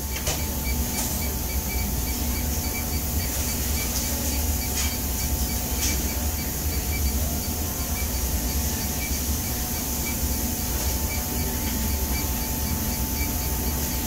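Steady hum and airflow hiss of a running refrigeration condensing unit, its compressor and condenser fan, with a faint, evenly repeating tick.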